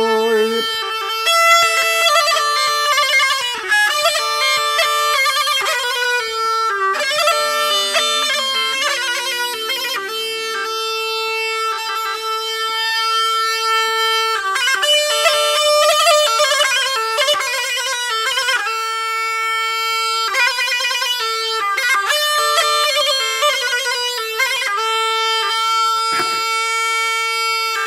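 Black Sea tulum (Turkish bagpipe) playing a quick, ornamented folk melody over a steady held note.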